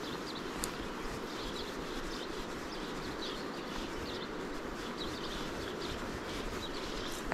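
Steady rush of a small stream running high after rain, with scattered short bird chirps over it.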